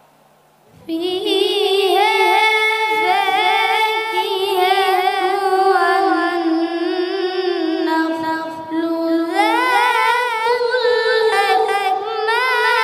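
A boy reciting the Quran in melodic tilawat style, with long held, ornamented notes. He begins about a second in, breaks off briefly a little past halfway, and comes back on a higher note.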